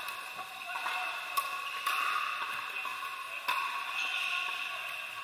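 Pickleball paddles striking the plastic ball: a few sharp pops, about a second and a half, two seconds and three and a half seconds in, in a large indoor court hall over a steady background din.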